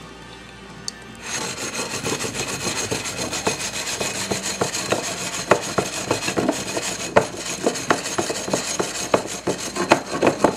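Loud, close rubbing and scraping with many scattered clicks and knocks, starting about a second in, as the bowl and camera are handled. Faint music with steady tones comes before it.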